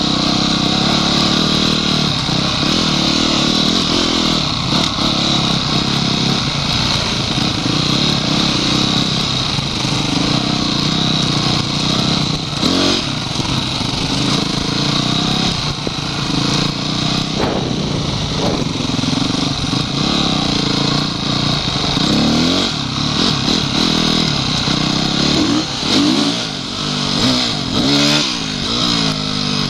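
Honda CRF250X enduro bike's single-cylinder four-stroke engine heard on board, running under throttle over rough ground, its pitch rising and falling as it revs up and down in the last several seconds.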